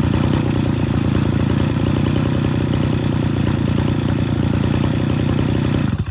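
Mitsubishi TL33 brush cutter's 33 cc two-stroke engine running steadily after a pull start, then cutting out abruptly at the very end.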